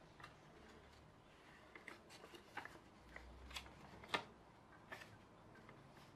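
A sheet of paper being folded and creased by hand, giving faint, scattered crinkles and crackles, the sharpest about two-thirds of the way through.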